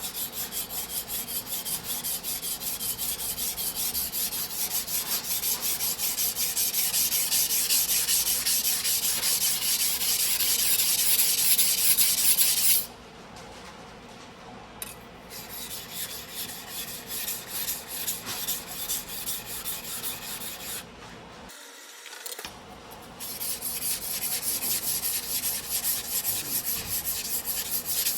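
Steel knife blade being ground by hand on a whetstone in fast, even back-and-forth scraping strokes. It is a single-bevel sujihiki being reground to repair its collapsed back. The strokes stop twice for a couple of seconds and are quieter in the middle stretch.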